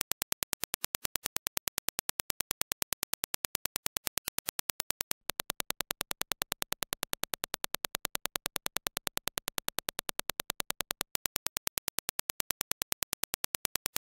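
A fast, even train of sharp test clicks, about ten a second: Dirac impulses for judging transient response. The reference impulse plays first, then after a short break about five seconds in the impulses as reproduced by Superlux HD681 headphones, and after another break near eleven seconds the reference again.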